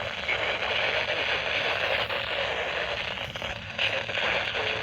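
Radio static: a steady hiss with crackle from a weak, noisy radio signal.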